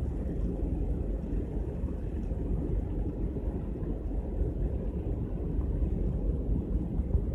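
Wind buffeting the microphone on the open top deck of a moving cruise ship: a steady low rumble with uneven, gusty swells and no clear engine tone.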